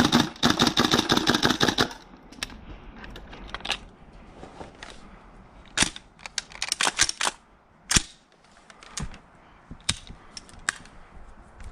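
Tokyo Marui MWS gas-blowback airsoft rifle firing: a fast string of shots for about the first two seconds, then single shots at uneven intervals.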